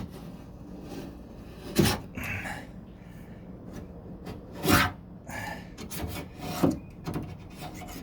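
Old factory anti-rattle sealant goop being scraped off a car door in a series of scraping strokes, the loudest about two and five seconds in.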